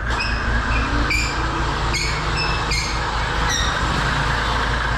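A steady low mechanical rumble with a run of short, high squeaks, about eight of them over the first four seconds.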